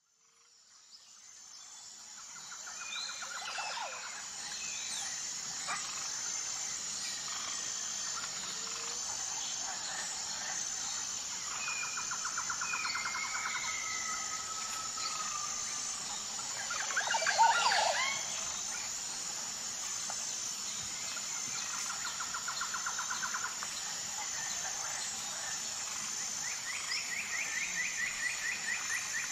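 Woodland birdsong: songbirds singing short trilled phrases several times, with a few gliding whistles and a louder, sharper cluster of calls a little past halfway. A steady high-pitched whine runs underneath throughout.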